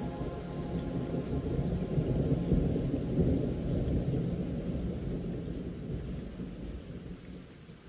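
Rolling thunder rumbling over steady rain, swelling to its loudest about two to three seconds in, then slowly fading away near the end.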